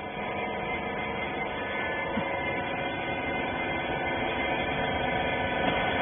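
Hydraulic rag baler's electric motor and hydraulic pump running steadily, a constant hum with several steady tones.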